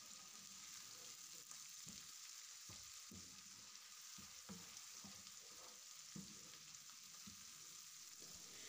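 Chicken pieces frying in oil in a pan with a faint, steady sizzle, stirred with a wooden spatula that knocks and scrapes against the pan every second or so. This is the roasting (bhuna) stage, with the spice masala being fried into the chicken.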